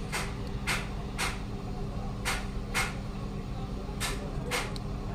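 Keys on a Samsung B313E feature phone's keypad being pressed: seven short clicks in three quick runs (three, then two, then two), about half a second apart within each run. A steady low hum runs underneath.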